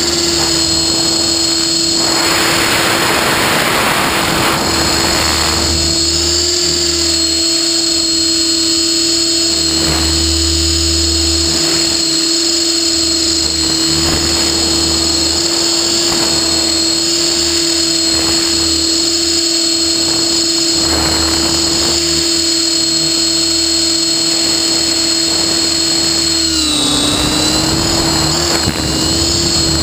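Align T-REX 600E PRO electric RC helicopter in flight, heard from a camera on its own frame: a steady high whine from the motor and drive, over noisy rotor wash that swells and fades. Near the end the pitch dips briefly and comes back up.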